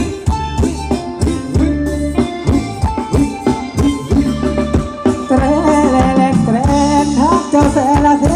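A live Thai ramwong dance band playing loudly over a PA: a steady, driving drum beat with a wavering melody line that comes forward about five seconds in.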